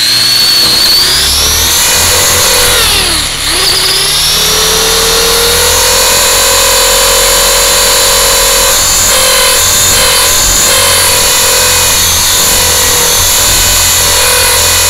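Electric motors and propellers of a small RC hover aircraft, heard up close from its onboard camera. The whine rises at liftoff, dips sharply about three seconds in, then settles into a steady hovering whine.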